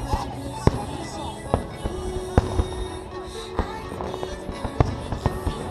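Fireworks shells bursting in sharp bangs, about six or seven at uneven gaps of roughly a second, over background music.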